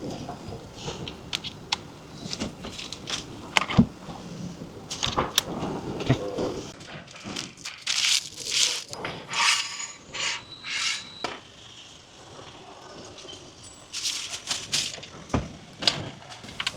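Hands working on car parts and wiring: irregular sharp clicks and knocks, with a run of short raspy bursts in the middle.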